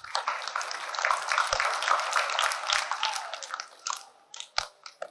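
Audience applauding, a dense patter of many hands clapping that fades away after about four seconds.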